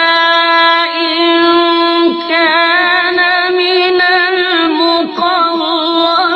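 Quran recitation: a single voice chanting in long, ornamented held notes. The pitch wavers and bends through melismatic runs, with only brief breaks.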